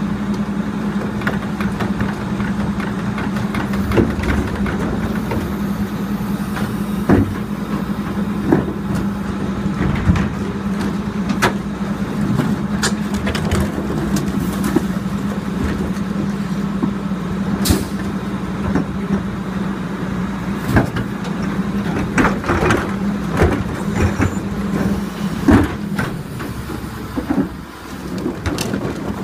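Crane Carrier LET2 garbage truck with a Leach rear-loader body running with a steady low hum while its cart tippers dump wheeled refuse carts into the hopper, with repeated knocks and bangs of the plastic carts and lids. The hum drops away near the end.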